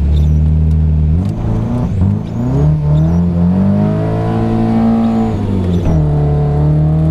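Nissan 240SX engine revving hard: it stumbles and breaks up about a second in, then climbs in pitch, holds high and drops back. The stumble is a skip from fuel starvation, with the tank near empty.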